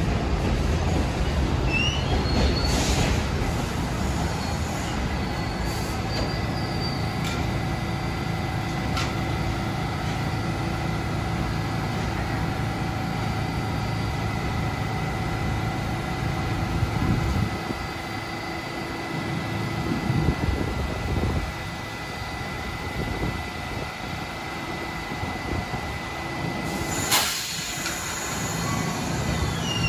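New York City subway train running through the station, with steady wheel and motor rumble and a high steady whine over it. The rumble eases off about two-thirds of the way through, and there is one sharp knock near the end.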